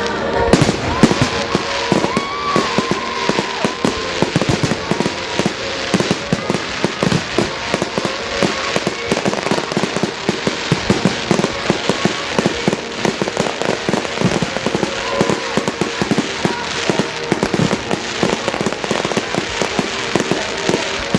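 Public fireworks display: a dense, continuous barrage of shell bursts and crackling reports, many bangs a second without let-up.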